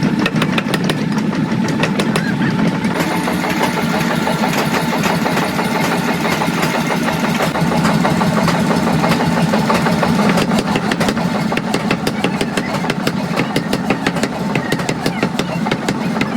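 Power forging hammer at work: a fast, steady run of repeated blows, several a second, over the continuous hum of running machinery.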